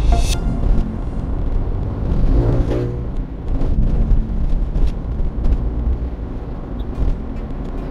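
Car driving on a rural road, heard from inside the cabin: steady road and engine rumble with light rattles. About two seconds in, a passing vehicle's engine is heard briefly.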